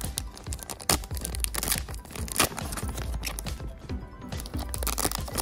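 Foil trading-card booster pack crinkling and tearing as it is pulled open by hand, with sharp crackles, over background music.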